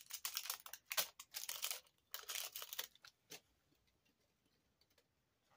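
Product packaging being handled and opened by hand: about three seconds of crinkling and rustling, then a single click, then quiet.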